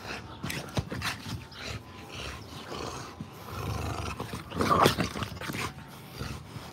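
Bully dogs growling as they play-wrestle, with rough scuffling throughout and the loudest growl about two-thirds of the way in.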